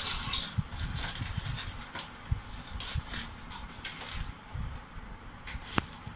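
Cardboard and plastic packaging being handled: irregular rustling with light taps and knocks, and one sharp click near the end.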